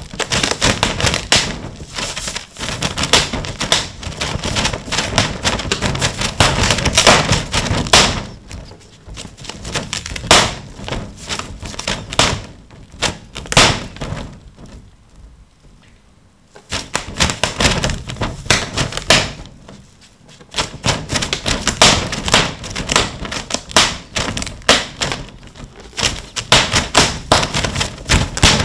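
A cat's claws tapping and scratching rapidly against a clear plastic sheet as it paws at hanging pieces of tuna. The taps come in crinkly, clattering flurries, with a lull of a couple of seconds about halfway through.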